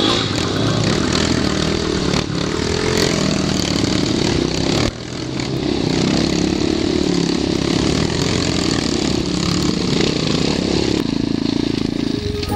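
Off-road dirt bike engine running under load on a steep dirt climb, its pitch rising and falling with the throttle, with a brief drop in level about five seconds in.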